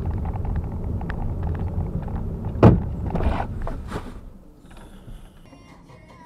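A car's engine and road rumble inside the cabin as it drives along a city street, with a single sharp thump about two and a half seconds in, the loudest sound. The rumble fades out after about four seconds.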